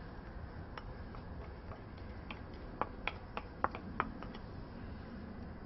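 Utensils clicking and tapping against a salad bowl as a salad is mixed: about ten light, sharp clicks at uneven intervals.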